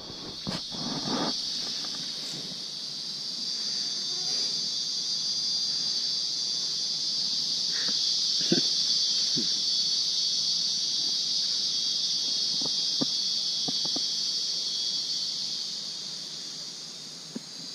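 Steady high-pitched insect chorus, a continuous shrill drone that swells slightly mid-way and eases near the end, with a few faint clicks over it.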